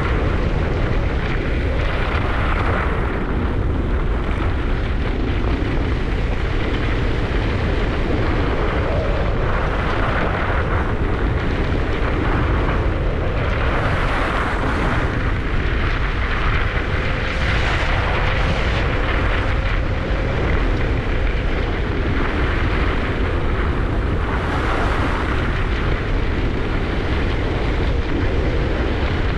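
Wind buffeting the microphone of a skier's camera during a fast descent, a steady low rumble, with skis hissing and scraping over the snow in repeated swells as the skier turns.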